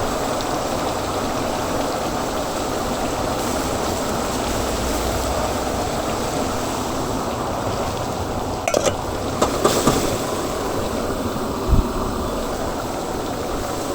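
Chicken cooking in large woks: a steady sizzling and bubbling, with a few sharp metal clinks about two-thirds of the way through.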